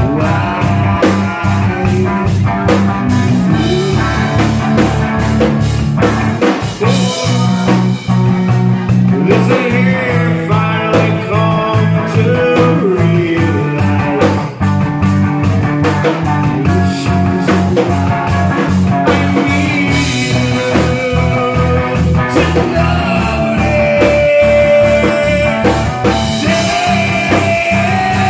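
Rock band playing live and loud: drum kit and electric guitar, with a singer at the microphone.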